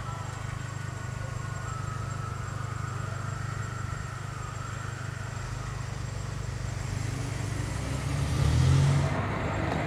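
Street traffic: a car engine's low, steady hum close by, growing louder for about a second near the end as a vehicle goes past.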